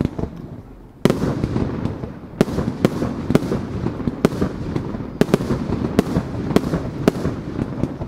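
Fireworks display: aerial shells launching and bursting in quick succession, with sharp booms about two a second over a continuous rumble and crackle. The barrage starts suddenly about a second in.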